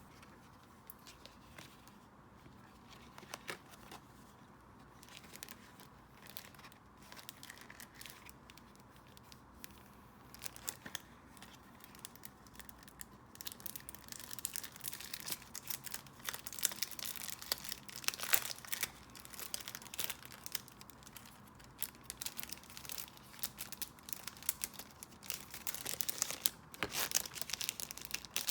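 Packaging being unwrapped by hand: crinkling, rustling and tearing of wrapping, sparse at first and busier from about halfway.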